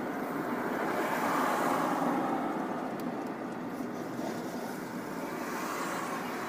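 Steady road and wind noise of a car driving at highway speed, heard inside the cabin: an even rush with no distinct bangs or impacts.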